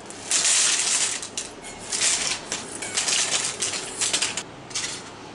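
Crisp oven-baked potato rings poured onto a parchment-lined plate: a rapid clatter of light, crunchy pieces landing on each other and on crackling parchment paper. It comes in clusters, loudest at the start, and stops shortly before the end.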